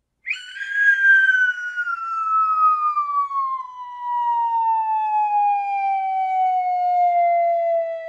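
Falling whistle sound effect: one whistled tone that starts suddenly and glides slowly and steadily down in pitch.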